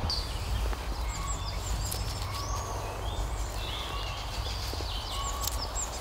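Wild songbirds calling: repeated short, high hooked notes and a few whistled glides, over a low steady rumble.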